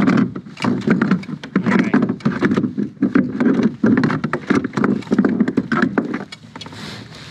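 Rapid, irregular knocks, taps and rustling from hands working a small chain pickerel off a micro popper's treble hooks, easing off near the end.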